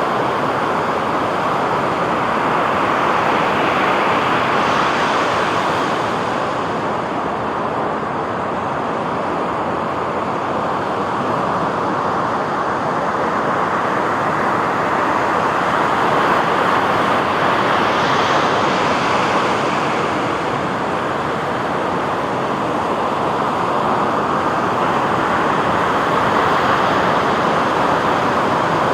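Sea waves washing onto a beach: a steady rushing surf that swells and eases every several seconds.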